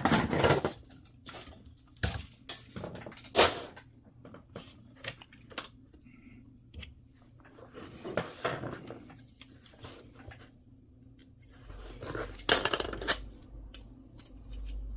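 Plastic model-kit parts being handled and pressed together: scattered clicks, taps and rustles, the loudest near the start, at about two and three and a half seconds, and around twelve and a half seconds.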